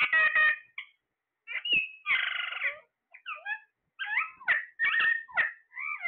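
Caged ring-necked parakeets calling: short harsh squawks and chattering calls, some sliding down in pitch, with a longer buzzy call about two seconds in and a quick string of calls in the last two seconds.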